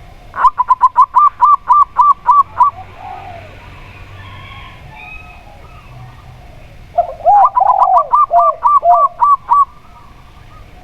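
Zebra dove (perkutut) song: a quick run of about nine clipped, arched cooing notes. After a pause it sings a second run, overlapped this time by lower-pitched coos from another dove.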